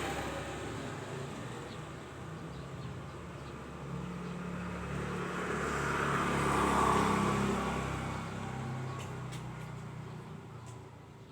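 A cat snoring with a low, rough hum, while a passing vehicle swells and fades about halfway through.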